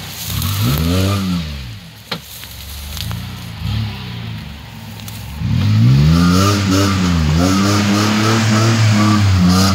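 Jeep Wrangler's engine revving under load in mud: a few short rises and falls of revs, then held high and wavering for the last four seconds. One sharp click about two seconds in.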